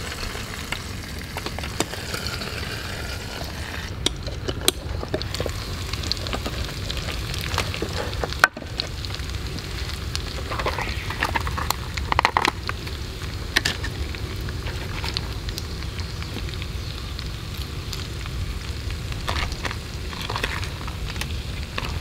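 Fatty meat slices frying in a small skillet, sizzling steadily in their own fat with many small spits and pops. The sound drops out for a moment about eight seconds in.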